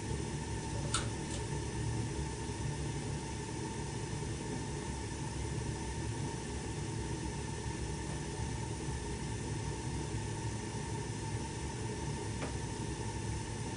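A 1988 Snyder General furnace running steadily during its startup cycle, giving a constant fan-like whir with a low hum. There are a couple of light clicks about a second in and another near the end.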